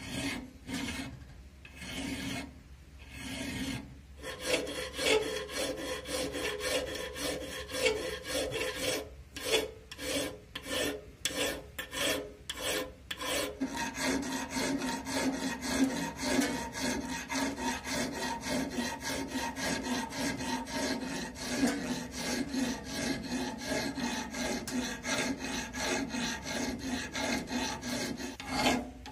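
Flat steel hand file rasping back and forth across the flat top of a steel axe head held in a vise, stroke after stroke. The strokes come with short pauses in the first half and run together more closely from about halfway on.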